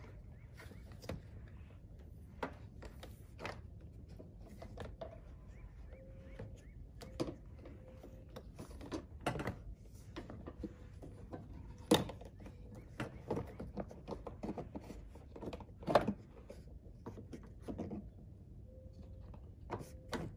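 Plastic windshield cowl panel of a 2013 Cadillac CTS being fitted back into place by hand: a scattered series of light clicks and knocks as the trim is handled and pressed down, with two sharper knocks in the second half.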